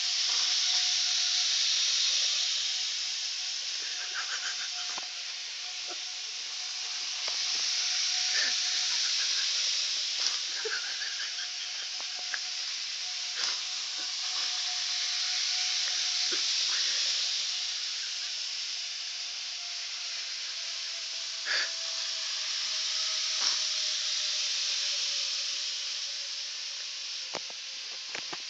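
N scale model train running laps around its track: a steady high hiss and rattle of its wheels and small motor that swells about every seven seconds as it passes close, then fades. A faint steady whine slowly drops in pitch over the second half, and a few light clicks come through.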